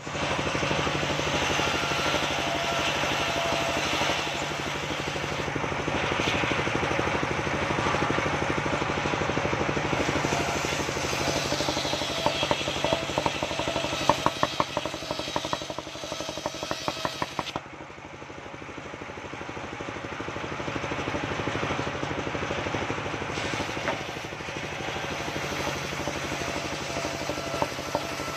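Engine-driven mobile circular sawmill ripping waru wood boards lengthwise: the engine runs steadily under the noise of the large blade cutting. A little past the middle comes a burst of rapid rattling ticks, then the cutting noise drops away and the blade runs lighter for a few seconds before the next cut builds up again.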